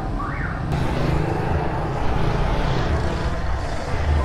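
City street traffic: motorbike and vehicle engines running and passing. There is a short rising tone near the start, and the sound changes abruptly under a second in.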